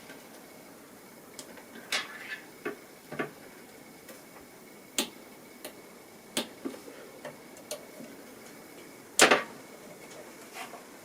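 Small sharp clicks and taps of repair tools on the parts of an opened iPhone, about a dozen spread irregularly, the loudest about nine seconds in.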